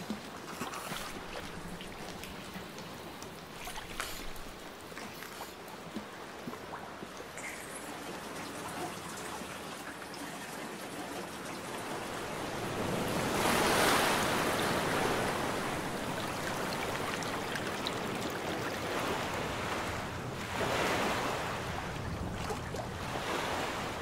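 Sea surf washing against rocky shore, a soft rush with a few small clicks and trickles, then two larger waves surging in, the louder one about halfway through and another near the end.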